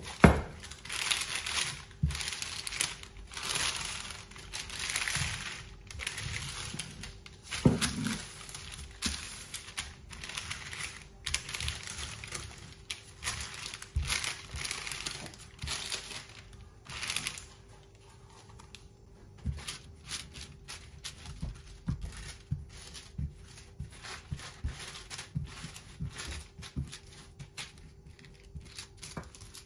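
Wooden rolling pin rolled back and forth over dough sandwiched between two sheets of baking paper, the paper rustling and crinkling with each stroke. The strokes come every second or two and grow quieter in the second half, leaving small taps and rustles of hands on the paper.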